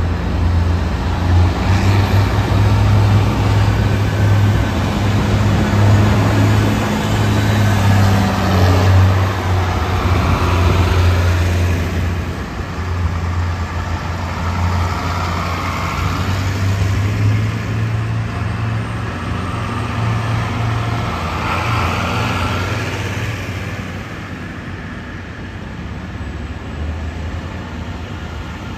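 Large diesel farm tractors driving slowly past one after another, including an International 1086, their engines running with a steady low drone. The drone is loudest in the first half and eases off toward the end.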